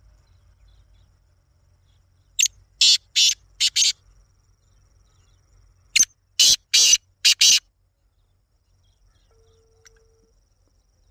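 Caged francolin (teetar) calling: a run of four loud, harsh notes a little over two seconds in, then five more about six seconds in, with a faint steady high trill in between.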